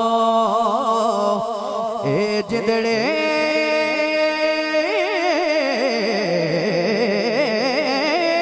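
Male naat reciter singing a long melismatic passage with no clear words, the held notes wavering in ornaments and stepping up in pitch about three seconds in.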